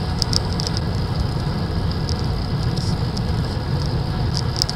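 Wind rush buffeting a bike-mounted camera's microphone, with road and tyre noise, while a road bike rides downhill at speed. Scattered light ticks run through it at irregular intervals.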